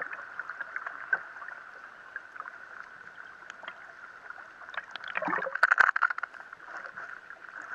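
Underwater sound under a churned sea surface: a steady high hum with scattered clicks and crackles of bubbles and surface splashes, and a louder burst of crackling about five and a half seconds in.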